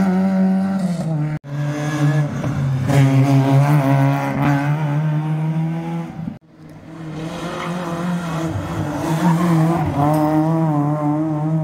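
Rally car engines revving hard, the pitch rising and falling as they accelerate and lift. The sound cuts out abruptly twice, about a second and a half in and again after about six seconds.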